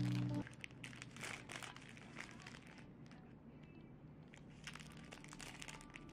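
Thin plastic wrapper of an individually wrapped rice cake crinkling as it is handled and peeled open, on and off, quieter around the middle.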